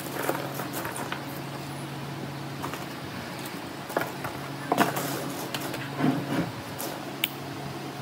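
Handling noise on a wooden workbench: pine cones rustling and clacking as they are arranged, then thin grey sheets being laid and tapped down, giving scattered light knocks and clicks. A steady low hum sits underneath.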